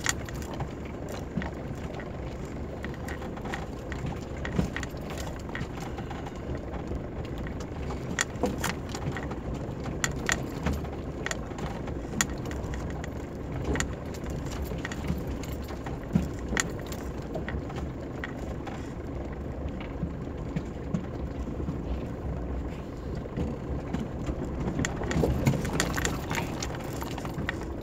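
Mitsubishi Pajero Mk2 crawling over a rocky dirt track, heard from inside the cab: a low, steady engine note under frequent knocks and rattles from the body and loose items as the wheels go over stones, rougher and a little louder near the end.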